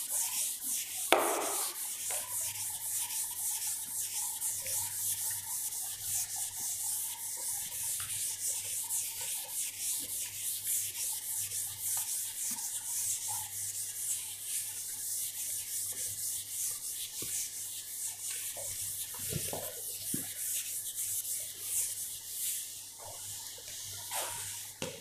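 A blackboard duster rubbing across a chalkboard in quick, repeated strokes, wiping chalk off the board. There is one sharp knock about a second in.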